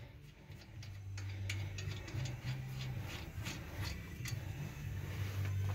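Ratchet wrench clicking in short, uneven runs as a brake caliper bolt is backed out, over a low steady hum.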